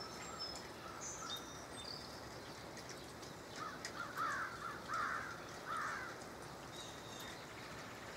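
A crow cawing three times, harsh calls a little under a second apart, over thin high chirps of small birds and a steady hiss of light misty rain.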